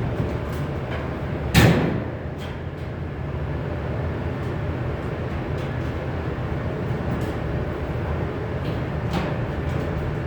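A steady low rumble, with one loud knock about a second and a half in and a few fainter knocks later.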